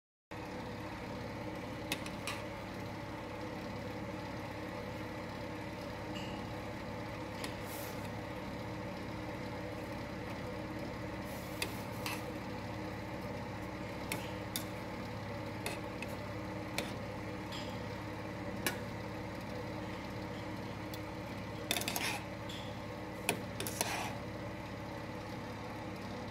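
Metal tongs clinking and scraping against a steel pot as noodles and cabbage are stirred, a handful of sharp clicks with a cluster near the end, over a steady mechanical hum.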